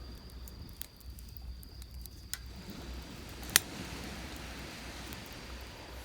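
Wood campfire crackling, with scattered sharp pops, the loudest about three and a half seconds in, over a low steady rumble of surf. A thin, steady, high insect trill fades out about halfway.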